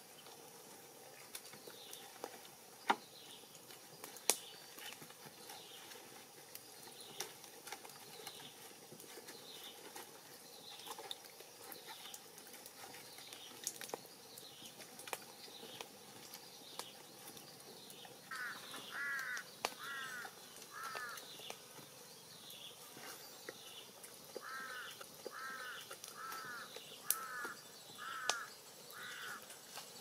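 Birds calling outdoors. A short high chirp repeats about once a second throughout, and two runs of louder, harsher calls come about half a second apart: a few calls about two-thirds through and more near the end. Occasional sharp clicks are heard as well.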